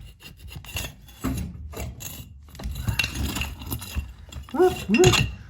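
Irregular rough scraping and light knocks of hand work on brick and mortar, typical of a trowel working mortar as bricks are laid.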